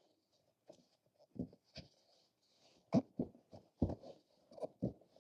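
Hands working a rubber inner tube into a small scooter tire: a string of soft, irregular knocks and handling noises, loudest about three and four seconds in.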